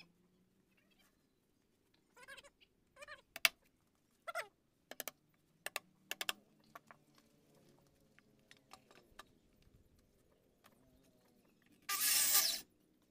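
Hammer knocking on a steel guide rail laid along a wooden slab: about ten sharp knocks, some with a short metallic rattle, between about two and seven seconds in. Near the end a power tool runs for under a second.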